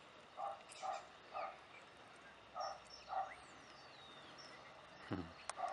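A string of short animal calls, each a brief two-toned note, coming in small groups about half a second apart, with thin falling bird whistles above them.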